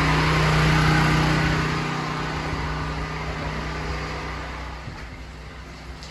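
An engine running at a steady pitch, loud at first and then fading away over the last few seconds.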